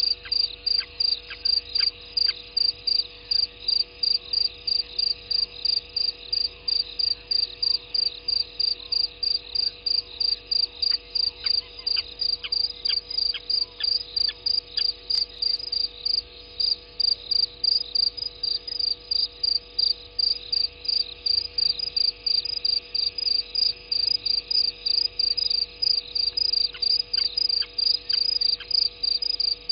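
A cricket chirping steadily in a high, even rhythm, about three chirps a second.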